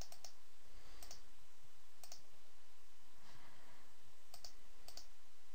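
Faint, scattered clicks over a steady background hiss: a quick run of three at the start, single clicks about one and two seconds in, and a few more after four seconds.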